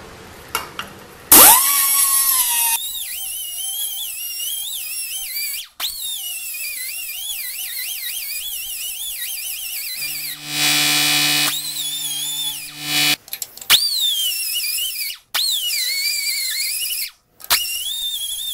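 Electric cut-off tool grinding out the cracked end of a steel weld, cutting away a crater crack before rewelding. It starts about a second and a half in, then whines with a wavering pitch as the wheel bites into the steel, stopping and starting several times. A steady buzzing hum is heard for about three seconds midway.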